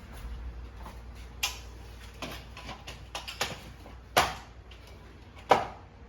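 A window screen frame being fitted and pressed into the window track: a run of light clicks and knocks, with sharper snaps about four and five and a half seconds in.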